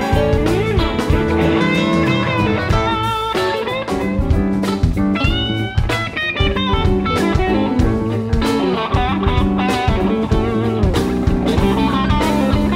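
Live band playing an instrumental stretch of a blues-rock song: an electric guitar lead with bending notes over keyboards and a drum kit.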